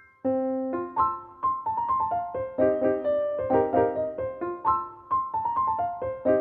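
Background piano music: a melody of quick struck notes, several a second, coming in just after a brief pause at the start.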